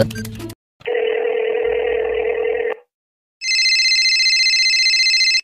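Telephone ringing sound effect: two rings of about two seconds each with a short gap between them, the second higher-pitched than the first.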